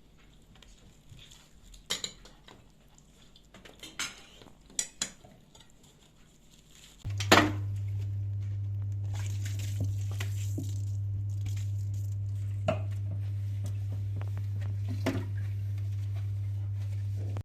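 Dishes and cutlery clinking several times, then a steady low hum switches on suddenly and carries on evenly, with a few more clinks over it.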